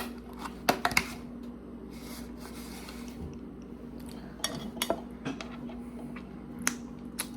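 Cutlery clinking and scraping against a plate in a series of short, irregular clicks while eating, over a steady low hum.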